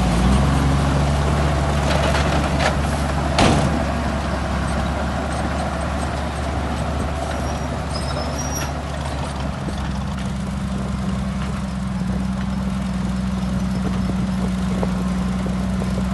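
Diesel engine of heavy earthmoving machinery running steadily, with a sharp clank about three and a half seconds in and a few lighter knocks.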